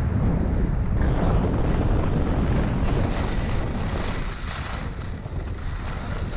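Wind buffeting a GoPro Hero 5 Black's microphone as a skier runs downhill, a steady low rumble with skis hissing over the snow. The wind noise eases a little about four seconds in as the skier slows down.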